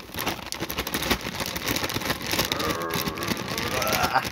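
Plastic bag of frozen tater tots crinkling and rustling as it is shaken upside down over a plastic container, the frozen tots stuck inside and not sliding out.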